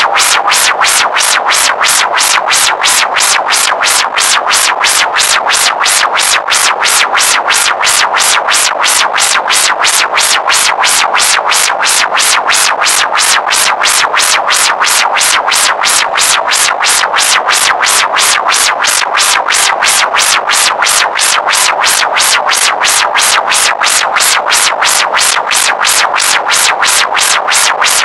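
Loud electronic synthesizer sound, harsh and noisy, pulsing in an even loop about two or three times a second without change.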